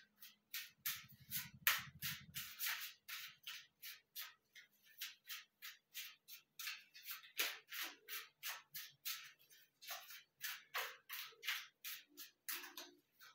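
A deck of tarot cards being shuffled by hand: a steady run of soft card swishes and flicks, about three or four a second.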